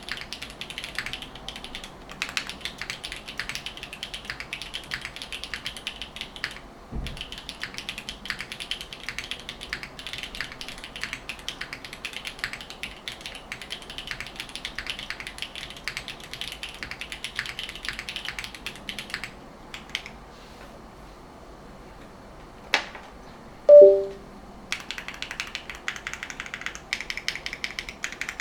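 Typing on a Neo60 Core mechanical keyboard with HMX K01 light tactile switches on an FR4 plate and GMK keycaps: a rapid, uneven run of key clacks. The typing pauses for a few seconds after about nineteen seconds, then a single loud short knock with a brief pitched ring comes before the typing picks up again.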